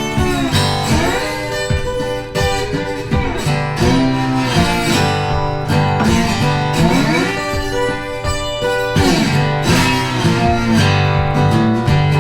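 Background music led by plucked and strummed guitar.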